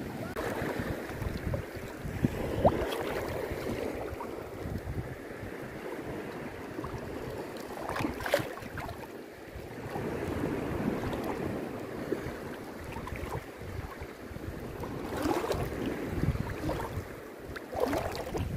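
Wind buffeting the microphone over shallow water lapping and swirling around a wader's legs, with a few brief knocks or splashes about 8 seconds in and again near the end.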